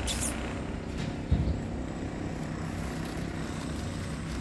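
Steady low engine rumble of road traffic, with a single dull thump about a second and a half in.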